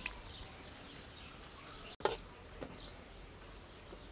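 Metal ladle knocking and scraping against a metal wok while stir-frying shrimp and squid: a few scattered clinks, one near the start and a couple about halfway through, over a faint steady background.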